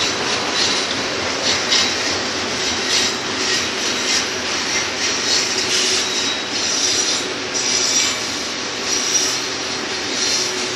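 Double-stack container cars of a BNSF freight train rolling past on a curve, a steady rumble of steel wheels on rail with high squeals coming and going as the wheel flanges grind against the curved rail.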